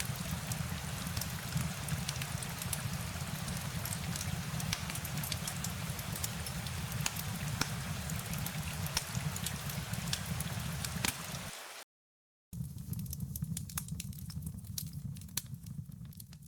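Steady rain with scattered sharp drop ticks over a deep low rumble. About twelve seconds in the sound cuts out completely for a split second, then comes back with less hiss.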